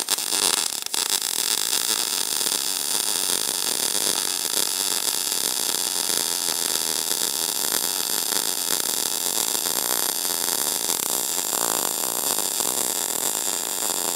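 MIG welding arc running steadily on a steel plate, a continuous hissing crackle. The ESAB EMP 215ic welder is set to 100% inductance.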